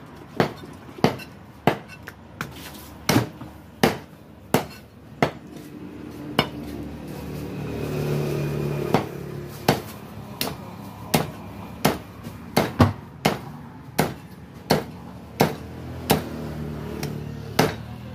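Cleaver chopping raw duck on a wooden chopping block, a sharp thud about every two-thirds of a second as it goes through meat and bone. The chops pause for a couple of seconds near the middle, while a low hum swells and fades behind them.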